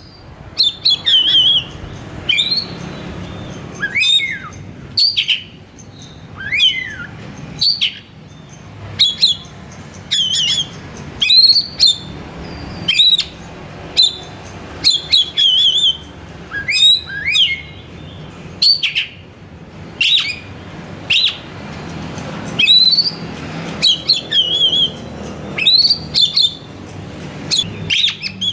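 Oriental magpie-robin (kacer) singing: a long run of short, loud whistled phrases about once a second, many sweeping up sharply to a high note, some ending in a quick trill and a few gliding down.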